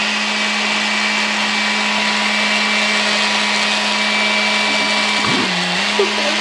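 Food processor motor running at speed, mixing a thick chocolate cake batter: a loud, steady whirr with a whine, its pitch dipping briefly about five and a half seconds in.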